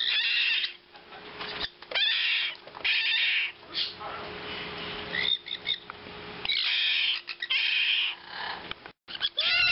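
Baby sun conures and a blue-crowned conure chick giving repeated harsh, raspy squawks, each about half a second long, coming in clusters with short pauses between them.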